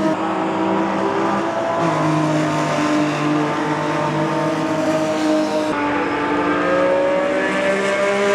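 Racing car engines running hard at speed, heard in three short shots cut together, with the changes about two and six seconds in. In the last shot an engine note climbs as the car accelerates.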